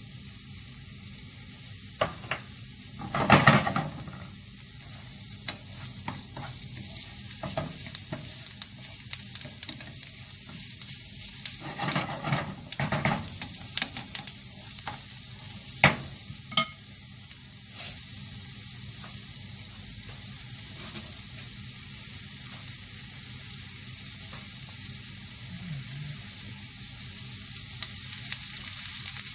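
Kimchi fried rice sizzling in a hot pan while it is stirred and tossed, with a steady hiss and a utensil scraping and knocking against the pan now and then, loudest a few seconds in and again about halfway through.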